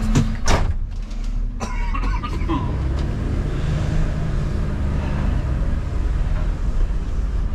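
Refuse truck's diesel engine running steadily, heard from inside the cab, with a couple of sharp knocks in the first half-second.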